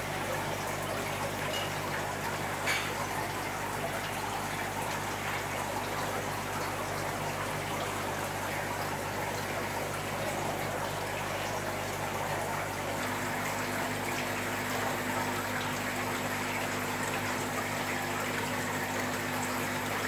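Aquarium filtration running in fish tanks: a steady rush of circulating water over a low, steady pump hum that changes pitch about two-thirds of the way through.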